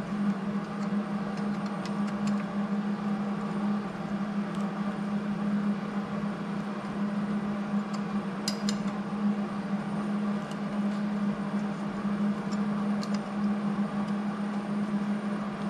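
Steady machine hum running without a break, with a few faint clicks on top.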